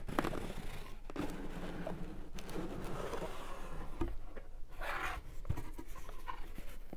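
Cardboard mailer box being opened by hand: scraping and rustling of the cardboard lid and flaps against each other and the paper inside, with a dull knock about four seconds in.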